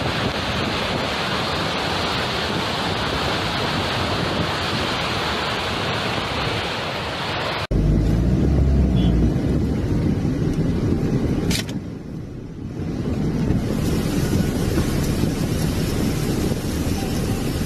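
Steady rushing of a muddy flash-flood torrent. About eight seconds in, an abrupt cut to a deeper, lower rumble of floodwater heard from inside a car, with a single sharp click a few seconds later.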